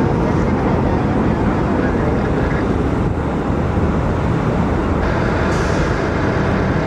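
Jet airliner's engines at takeoff thrust: loud, steady jet noise, heaviest in the low end, with a little more hiss coming in about five seconds in.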